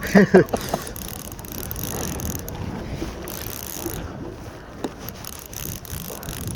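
A fishing reel clicking and ratcheting under load while a hooked fish fights, with irregular ticks from its gears. A short voice is heard at the very start.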